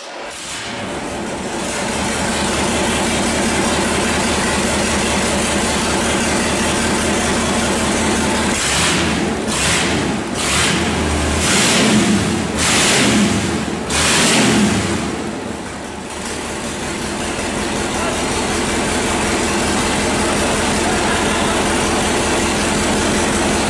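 Freshly overhauled Mercedes-Benz OM442 LA turbocharged V8 diesel engine running on a test stand after its rebuild. It runs steadily, is revved in several short bursts about a third of the way in, then settles back to a steady idle.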